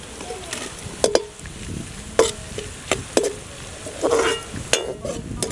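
Perforated steel skimmer scraping and knocking against a steel kadai as chopped onion and capsicum are stirred in hot oil, over a light sizzle. About half a dozen metallic scrapes, each with a short ringing tone.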